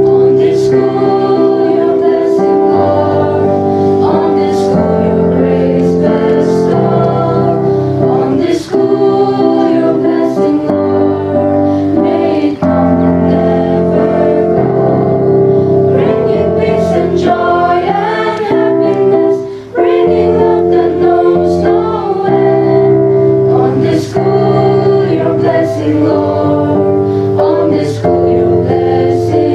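A school choir singing a hymn with keyboard accompaniment, in held chords that change every couple of seconds.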